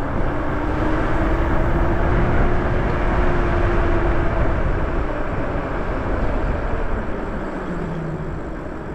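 Wind rushing over the microphone and tyre noise from an electric bike riding along a street, with a faint motor whine that rises slightly in pitch and then falls away. The noise eases off over the last few seconds as the bike slows.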